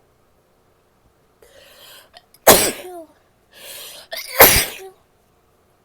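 A woman sneezes twice, about two seconds apart, each sneeze preceded by a short drawn-in breath.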